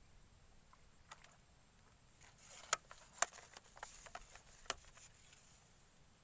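A handful of quiet, sharp clicks and short rustles, bunched in the middle, as a telescopic fishing pole is swung up and a small fish is lifted out of the water on the line.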